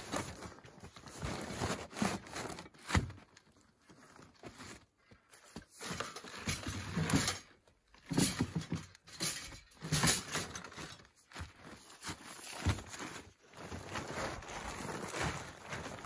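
Camping gear being packed into a tarp-lined sled: plastic tarp and bags rustling, with scattered knocks and thumps and crunching footsteps in snow.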